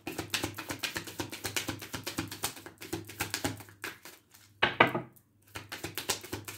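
A deck of cards being shuffled: a fast run of crisp clicks, with a brief louder flutter just before five seconds in.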